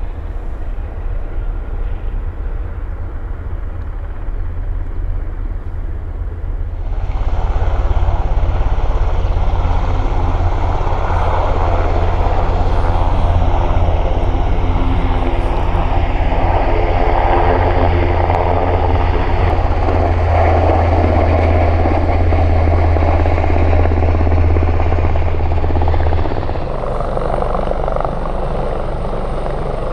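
Helicopter's rotor and turbine engines running. The rotor beat is steady and low, and the sound grows louder about seven seconds in and drops back near the end.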